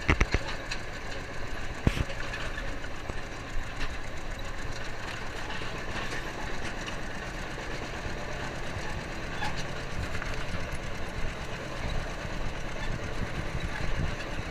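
Farm tractor engine running steadily while the towed ride wagon rattles and clatters along, with one sharp knock about two seconds in.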